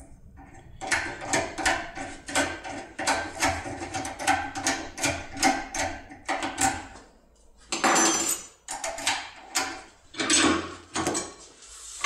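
Rapid metallic clicking, about three clicks a second, from a tin-foil impression pick being rocked up and down under tension in a CISA ASIX lock cylinder. Near the end come a few louder clatters of metal parts being handled.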